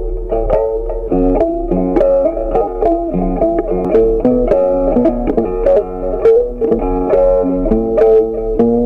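Background music: a plucked guitar playing a quick melody of short notes.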